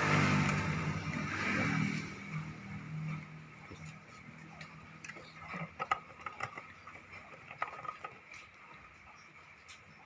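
A small engine hums steadily for the first couple of seconds, then fades away. Scattered light clicks and knocks follow.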